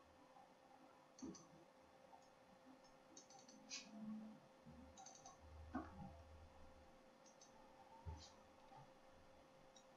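Near silence, broken by a handful of faint, separate computer mouse clicks as files are picked in an open-file dialog.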